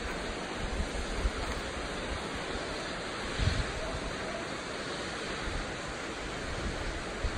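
Wind blowing over the microphone outdoors: a steady rushing hiss with low rumbling buffets, one stronger gust a little past the middle.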